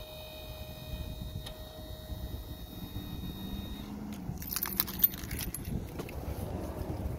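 Low outdoor rumble of wind on a handheld microphone, with faint steady high tones that stop about four seconds in. Around the middle comes a brief burst of small metallic jingling clinks with one sharper click.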